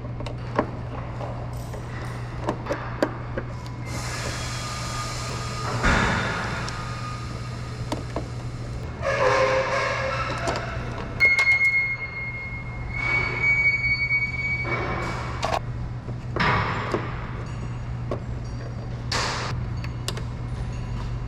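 Scraping and rustling as tail-light wires are pulled out and fed back through a hole in the car body, with two short high squeaks and a few clicks, over a steady low hum.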